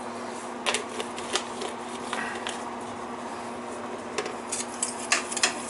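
Irregular light clicks and taps of a spice shaker being shaken over a stainless steel saucepan of rice, then a spatula stirring in the pot, over a steady low hum.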